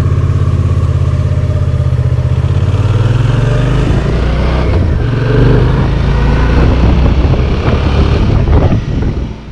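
Suzuki V-Strom 650's V-twin engine running under way, with a steady hiss over it. The engine note shifts about four to five seconds in and fades near the end.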